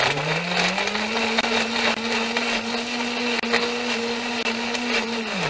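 Breville countertop blender running, blending fruit and juice into a smoothie. The motor's pitch climbs over the first second, holds steady, then starts to wind down near the end.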